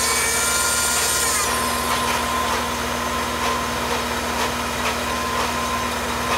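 Benchtop mill-drill running with a steady motor whine while its cutter bites into a metal workpiece, giving a high hiss and squeal for the first second and a half or so. The cutting then falls away, leaving the motor running with a few light clicks.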